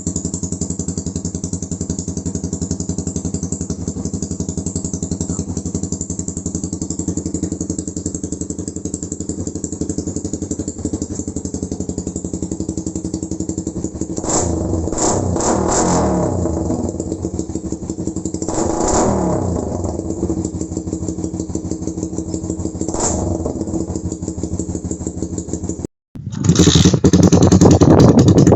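Suzuki Raider 150 Fi's single-cylinder four-stroke engine through a Kou Mahachai v3 aftermarket exhaust, idling steadily. About halfway through there is a cluster of quick throttle blips, then two single blips later. After a short break near the end it comes back much louder.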